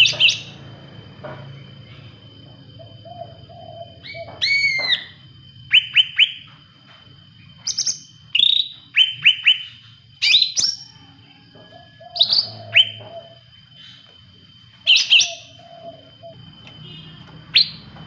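Caged cucak rante leafbird singing in short bursts: sharp chirps and quick whistled notes sweeping up and down, a dozen or so spaced a second or two apart, some with a lower buzzy note.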